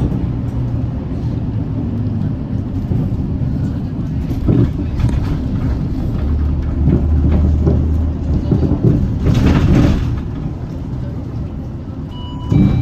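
Hyundai Green City diesel city bus under way, heard from inside: engine and drivetrain running with a steady low drone for a couple of seconds mid-way, and a short hiss about nine seconds in.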